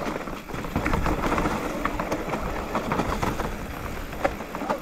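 Mountain bike running fast downhill over a dirt trail covered in dry leaves: tyres rolling over leaves and dirt, with many short clicks and rattles from the bike.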